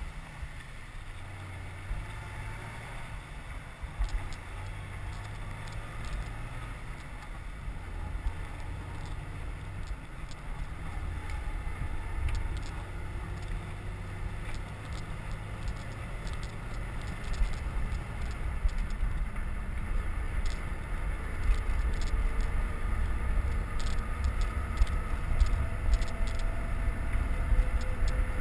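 Wind buffeting the microphone of a cyclist's camera while riding along a road, a low rumble with no clear engine tone that grows louder in the second half.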